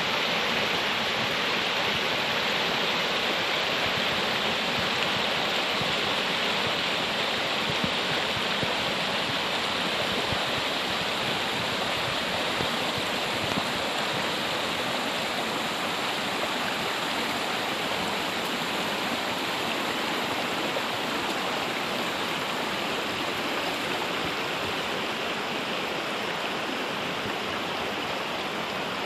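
Rushing water, a steady dense hiss that eases off slightly toward the end.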